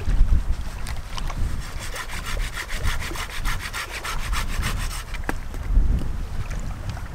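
A hand saw cutting through a dead branch for firewood, in a run of quick, even strokes from about two seconds in until about five seconds in. Wind buffets the microphone throughout.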